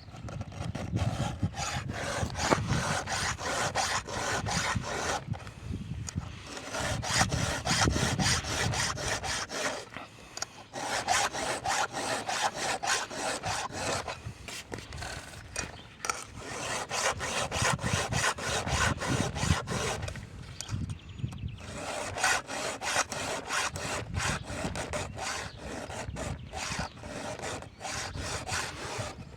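Hand file rasping across the cutters of a chainsaw chain during sharpening. The strokes come in quick succession, several a second, in runs of a few seconds with brief breaks in between.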